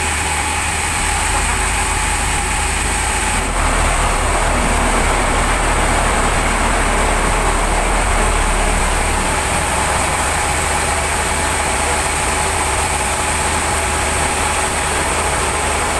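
Sawmill machinery running steadily, a continuous loud machine drone with a high steady whine.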